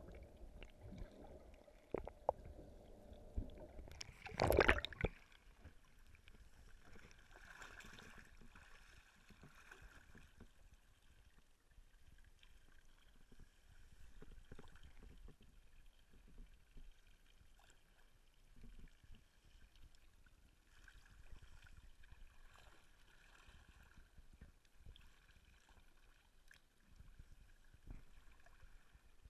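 Faint water gurgling and sloshing against a small boat's hull, with scattered light knocks and one loud, short burst about four and a half seconds in.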